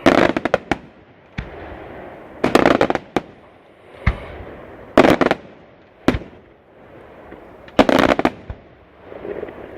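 Aerial firework shells bursting: tight clusters of sharp bangs roughly every two to three seconds, with single bangs between and a rumbling echo in the gaps.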